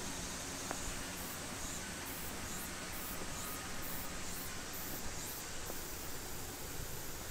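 Steady outdoor background hiss with light rustling. A faint, very high-pitched pulsing repeats about twice a second through the middle.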